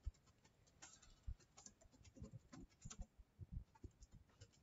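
Faint, irregular taps of a computer keyboard being typed on, a few keystrokes a second.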